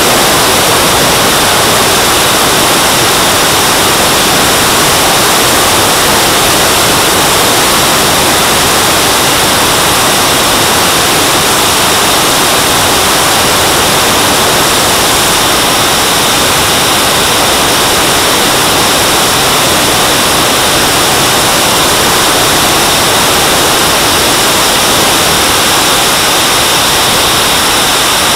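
JetCat turbine of a Boomerang Elan model jet running in flight, heard from a camera on the airframe as a loud steady rush of engine and air noise with a faint high whine over it.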